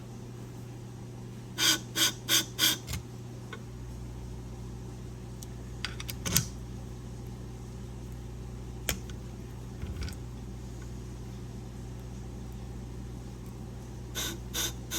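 Scissor sharpening machine with a 240-grit diamond wheel humming steadily, with a quick run of five short rasps about two seconds in. A few single ticks follow, then another run of short rasps near the end as the blackened blade edge is touched to the wheel for a scratch test.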